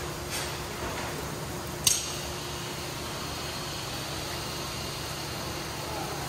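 Car-wash foam brushes spinning on their electric drives, giving a steady mechanical running noise with a low hum. One sharp click about two seconds in.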